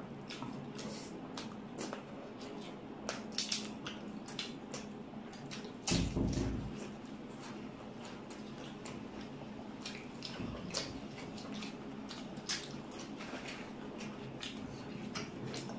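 Close-up eating sounds: wet chewing and smacking with irregular small clicks. A louder low thump about six seconds in.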